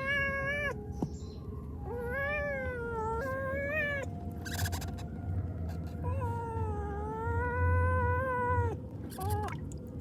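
Kitten meowing again and again: a few short meows, then a long drawn-out meow starting about six seconds in, and a brief one near the end, over a low hum.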